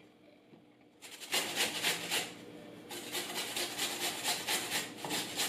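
Raw peeled potato being grated on a flat handheld metal grater: quick, rhythmic rasping strokes, several a second, starting about a second in.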